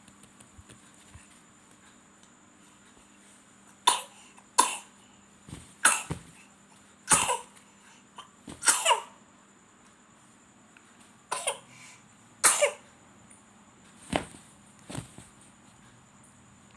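A person coughing in two bouts of several coughs each, about ten coughs in all, starting about four seconds in.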